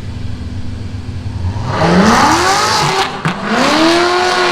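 Drag-race launch: an engine idles low, then about two seconds in it goes to full throttle, its pitch climbing. There is a short dip at a gear change just past three seconds, and then it climbs again.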